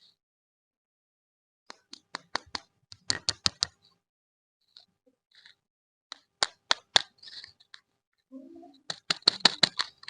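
Plastic candy packaging being handled and unwrapped: sharp crinkles and clicks in three separate flurries, the last one faster.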